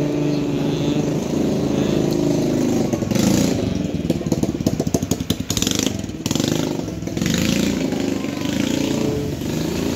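A motor running steadily with a low hum. About four seconds in it turns to a rapid pulsing for a couple of seconds, then steadies again.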